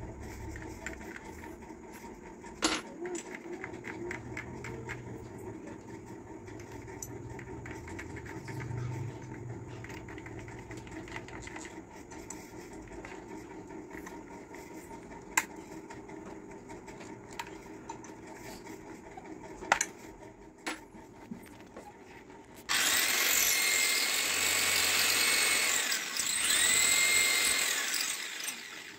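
A few sharp clicks as the drill's chuck is handled, then about three-quarters of the way in a corded electric drill starts and runs for about six seconds, boring into ceramic wall tile, its motor whine dropping in pitch twice as the bit loads.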